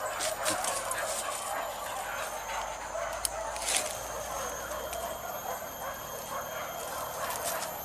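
A pack of hunting dogs barking and yelping over one another during a wild boar hunt, with a few sharp clicks scattered through it, two of them a little past halfway.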